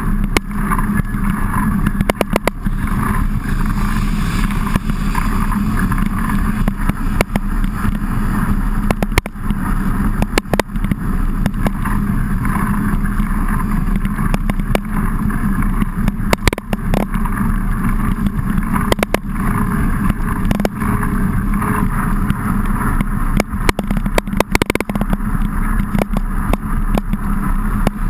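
Mountain bike ridden in heavy rain, heard through a bike-mounted camera: a steady rush of wind and tyre noise on the wet ground, with many sharp ticks and taps throughout.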